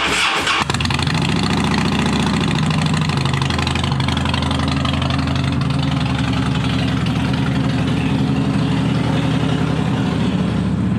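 Harley-Davidson Dyna V-twin engine running steadily just after starting, its exhaust freshly refitted with new gaskets and a bit louder than usual. The note jumps in right at the start, then settles to an even, steady run.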